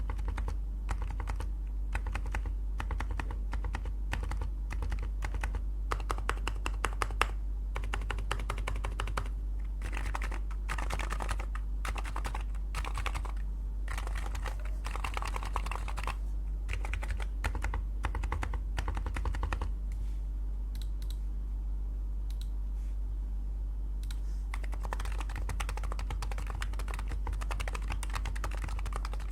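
Typing on a custom 60% keyboard with Topre electrostatic-capacitive rubber-dome switches in a Rule60 V3 case: a fast, steady run of key presses that thins out for a few seconds about two-thirds of the way through, over a faint steady low hum.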